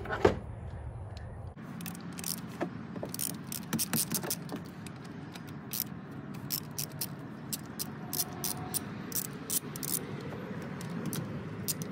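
Socket ratchet clicking in short, irregular runs as it turns the 10 mm bolts that hold an ignition coil on a 5.3 L Vortec V8. A single knock comes just at the start.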